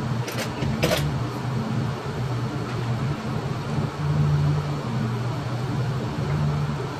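Steady low mechanical hum, fan-like, wavering in level, with a quick run of sharp clicks in the first second, the last one the loudest.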